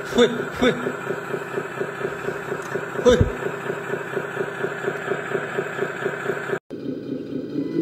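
An RC model truck's engine sound running steadily at idle, with a rapid, even chugging. It cuts off abruptly about six and a half seconds in, and a different, quieter engine hum follows.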